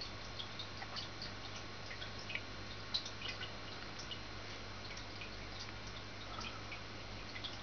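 Water trickling in a home aquarium, with many small scattered drips and plinks over a steady low hum.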